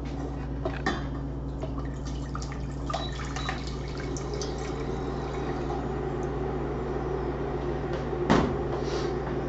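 Water poured from a plastic measuring cup into a stainless steel saucepan, running and splashing steadily, with a single sharp knock near the end.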